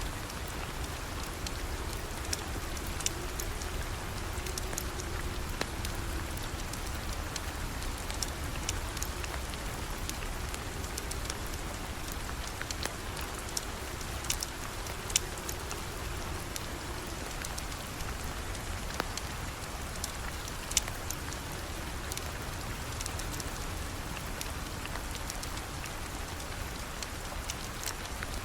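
Steady rain falling, an even hiss with scattered sharp ticks of drops throughout.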